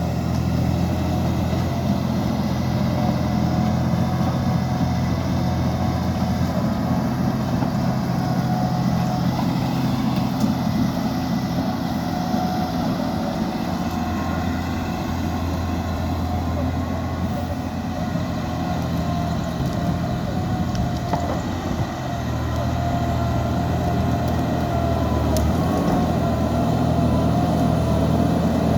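Liebherr 754 crawler dozer's diesel engine running steadily under work, with a whine over it; the engine note drops briefly about three quarters of the way through, then picks up again.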